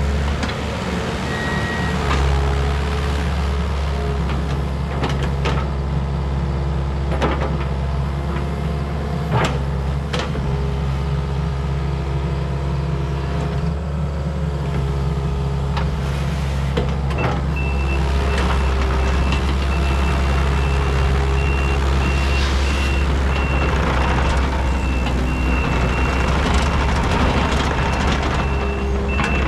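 Kubota KX080-3 excavator's diesel engine running steadily as the boom, bucket and tracks work, with scattered metal clanks. From a little over halfway, a high-pitched beeping alarm sounds repeatedly while the machine moves.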